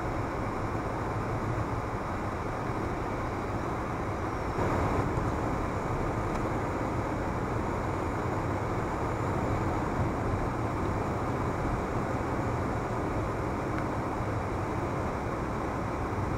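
Car driving along an open road: steady engine and tyre-on-road noise heard from inside the cabin, a little louder for a moment about five seconds in.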